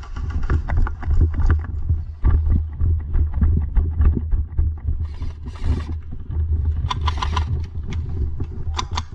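Low rumbling and scuffing noise on a body-worn camera's microphone, from movement or wind, with many short sharp clicks and knocks scattered through it; the clicks bunch up about seven and nine seconds in.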